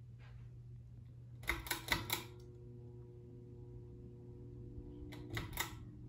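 Ceiling fan running with a low steady motor hum. Twice, about one and a half seconds in and again near the end, comes a quick cluster of sharp metallic clicks followed by a faint ringing tone that lingers: the rattle of the fan's loosely hanging light kit as the fan wobbles.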